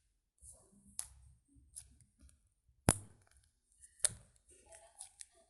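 Scattered clicks and taps while slime is handled. Sharp ones come about a second in, about three seconds in (the loudest) and about four seconds in, with softer crackles between them.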